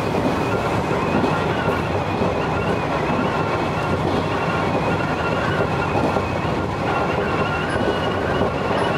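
Sanyo Electric Railway electric multiple unit running at speed: a steady rumble of wheels on rail with a thin, steady high whine over it.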